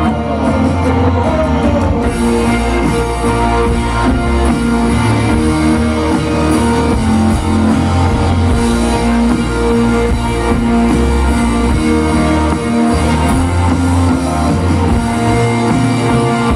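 Rock band playing an instrumental passage of a pop-rock song, with electric guitars, bass and drum kit, loud and steady throughout.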